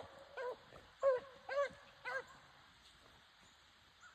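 Beagle hounds on the run giving four short bays about half a second apart, then falling quiet after about two seconds.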